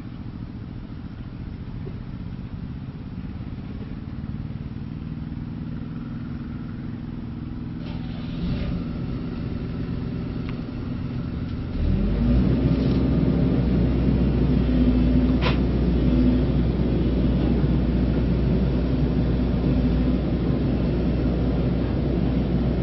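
A small engine running steadily at a constant pitch. About twelve seconds in it suddenly gets much louder and stays loud.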